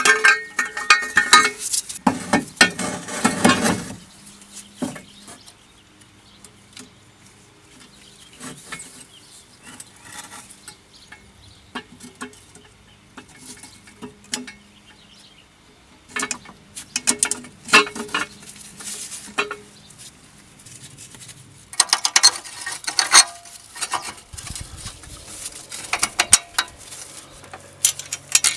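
Metal hand tools clinking and clicking in several bursts of rapid clicks, with quieter handling between.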